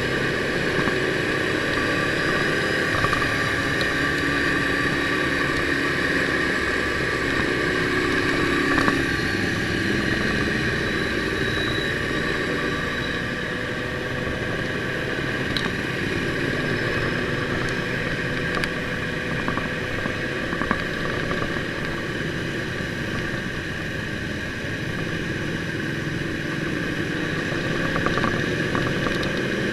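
Ducati sport motorcycle running along in traffic at steady speed, heard from on the bike, its engine note drifting slightly up and down with the throttle over continuous road rumble.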